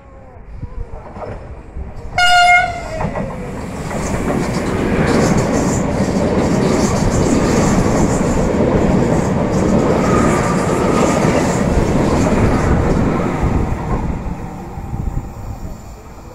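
A red high-speed electric train gives one short, loud horn blast about two seconds in. It then passes close by at speed with a long, steady rush of wheels and air that fades near the end.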